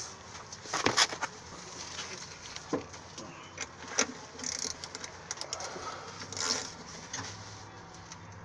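Irregular clinks, clicks and knocks of metal hand tools: a socket and extension being worked onto the starter's mounting bolts under the car.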